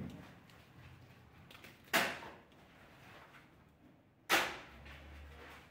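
A long-handled pick struck hard into the ground in a slow rhythm: a light knock at the start, then two heavy blows about two seconds apart, each sharp and trailing off briefly.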